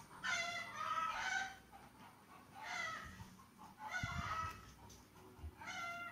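A series of short, pitched animal cries, about four or five of them, each under a second long and spaced roughly a second and a half apart.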